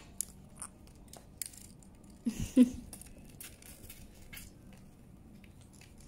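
Indian ringneck parrot eating chopped soft food from a plate: scattered small clicks and crunches of its beak picking up and chewing the food, with one louder knock about two and a half seconds in.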